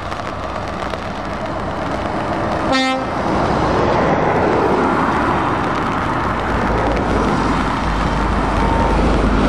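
Lorry tractor units driving past on a wet road, their engine and tyre noise growing steadily louder, with a deep low engine drone near the end as a Mercedes-Benz Actros comes close. About three seconds in, a truck horn gives one short toot.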